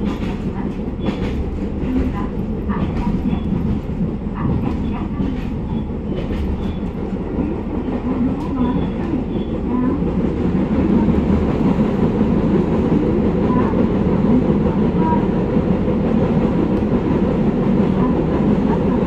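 A Gono Line train running along the rails, heard from inside the carriage: a steady low rumble of wheels on track with scattered clicks in the first half. It grows a little louder about ten seconds in.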